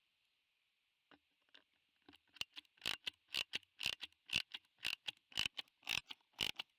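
A run of sharp clicks, a few faint ones at first, then a regular train of about two a second from about two seconds in, growing louder, over a steady high hiss.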